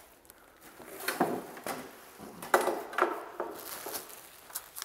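Irregular rustling and light clatter of kit parts and packaging being handled and unpacked, a series of short scrapes and knocks with the loudest about two and a half and three seconds in.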